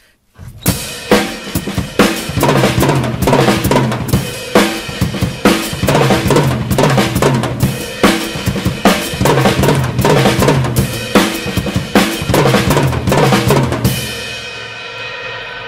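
Acoustic drum kit played: a beat broken by six-stroke fills, two bass-drum strokes then four right-left hand strokes across two widely spaced toms. Dense, fast hits start about half a second in, and near the end the playing stops on a cymbal left ringing.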